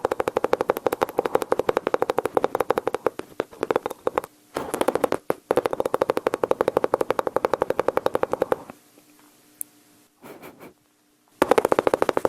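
Mouth imitation of machine-gun fire: rapid rattling clicks, about ten a second, over a voiced buzz, in long bursts that break off about four and eight and a half seconds in. After a short lull a new burst starts near the end.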